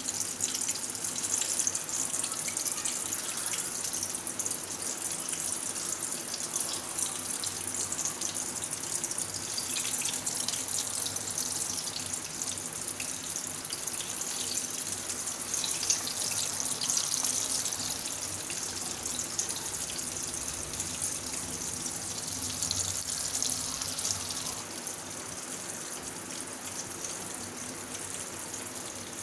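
Chicken pakoras deep-frying in hot oil: a steady crackling sizzle that drops a little in level near the end.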